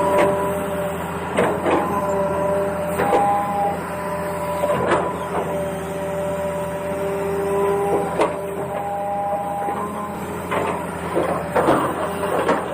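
Small electric motors of a radio-controlled toy excavator whining in shifting tones as it works, with short rattling scrapes every second or two.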